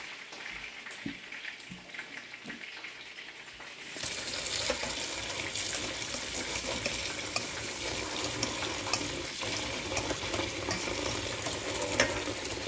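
Kitchen tap turned on about four seconds in, running a steady stream of water into a stainless steel mixing bowl as the bowl fills.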